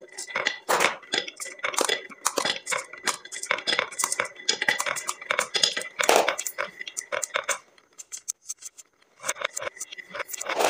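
Glass marbles rolling down a wavy wooden HABA marble-run slope, rattling along the chute and clicking against each other as they pile up against a plastic toy truck at the bottom. A dense stream of clicks that stops briefly about eight seconds in, then starts again.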